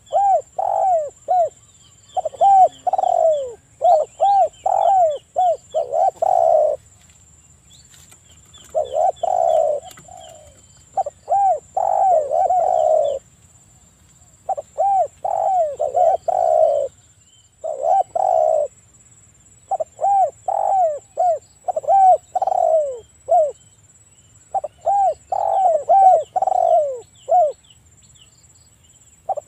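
Spotted doves (tekukur) cooing: about eight phrases of quick, repeated rolling coos, each one to four seconds long, separated by short pauses. This is the excited, breeding-season cooing that is played as a lure to set other spotted doves calling.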